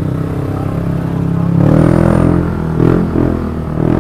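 Yamaha NMAX 155 scooter's single-cylinder engine running on the move, growing louder about a second and a half in as it picks up speed.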